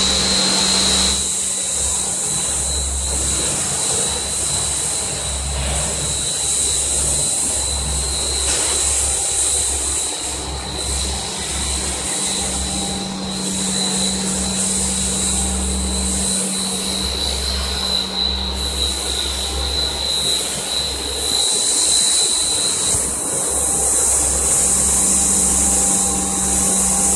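Food extrusion machinery running steadily, driven by electric motors: a continuous low hum with a thin, steady high whine and a hiss on top.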